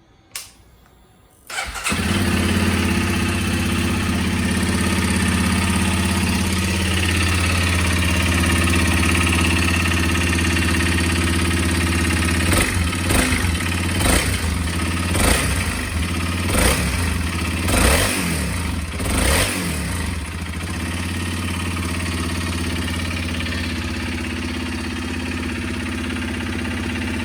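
Honda CRF250F single-cylinder four-stroke dirt-bike engine starting about a second and a half in and idling, then blipped in a quick series of short throttle stabs before settling back to idle. Throughout it carries an abnormal engine noise that the owner calls quite loud.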